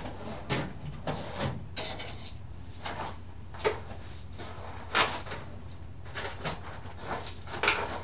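Scattered clinks, knocks and rustles of tools and parts being handled at a workbench, at uneven intervals over a steady low hum.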